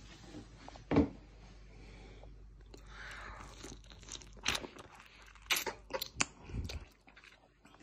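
A man biting and chewing into a lemon wedge held close to the microphone: one sharp knock about a second in, then a quick run of crunching, smacking bites in the last few seconds.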